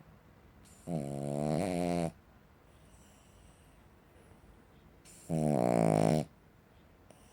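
Cavalier King Charles Spaniel snoring: two loud snores, each about a second long and about four seconds apart, on its in-breaths, with quiet breathing between.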